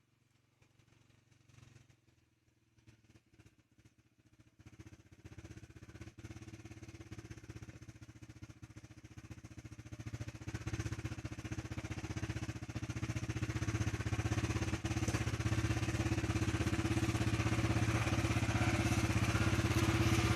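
Off-road vehicle's engine running at steady revs, growing gradually louder from near silence.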